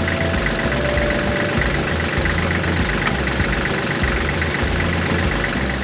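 Kubota L3400 tractor's diesel engine running steadily at idle.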